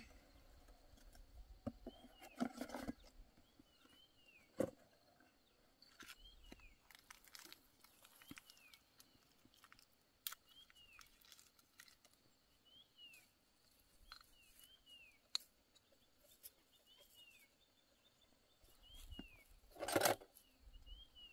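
A small bird chirping over and over, short calls that fall in pitch, every second or two. A few sharp clicks and knocks come in between, the loudest near the end.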